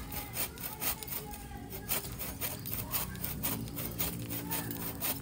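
Hand saw cutting through a thin wooden tree branch, the blade rasping in rhythmic back-and-forth strokes.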